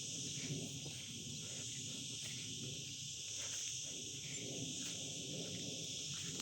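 Steady, continuous chirring of an insect chorus, high-pitched and unbroken, over a faint low rumble of outdoor background.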